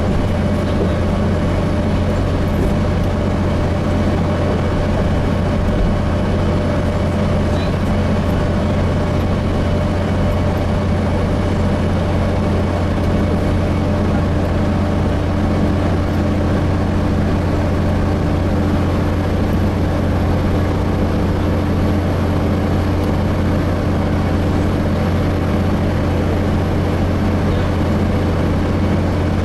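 Gillig Phantom transit bus with a Voith transmission, heard from inside the cabin: a steady low drone from the engine and drivetrain at an even pace. A faint higher tone joins about halfway through.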